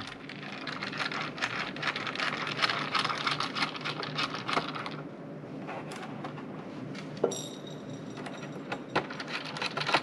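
A small screwdriver clicking and scraping as it backs tiny screws out of a Dell Inspiron 15 3000 laptop's chassis. The fine clicking is dense for about the first five seconds, then thins to a few separate sharp clicks, one about seven seconds in.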